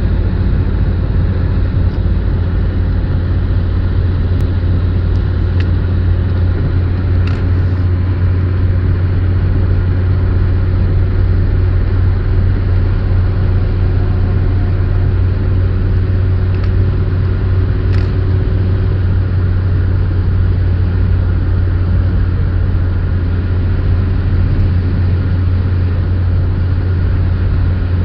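Steady low rumble of a car cruising at motorway speed, engine and tyre-on-road noise heard from inside the cabin, with a few faint clicks.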